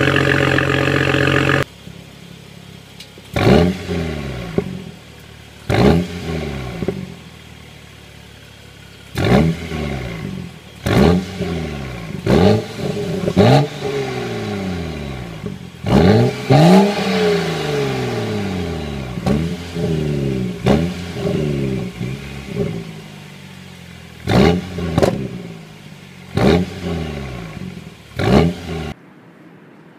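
BMW 135i's N55 turbocharged straight-six idling through the BMW Performance exhaust, then, after a sudden cut about two seconds in, a quieter idle through the stock exhaust broken by more than a dozen short throttle blips, each revving up and falling back. The sound stops near the end.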